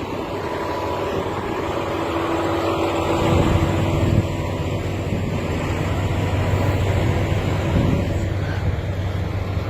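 A vehicle engine running steadily, a low hum that grows louder over the first three seconds and then holds.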